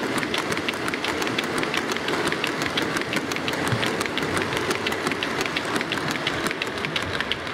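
OO scale model coal hopper wagons rolling along curved track, their wheels clicking rapidly and regularly over the rail joints with a steady running rattle underneath.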